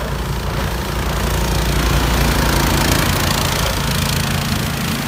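Short-tail boat motor (an SC390 short-tail set) running steadily at speed, with the hiss and rush of its propeller wash and spray growing a little louder about a second in.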